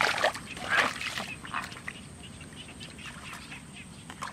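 Animal calls: a few harsh calls in the first second or so, then fainter scattered sounds.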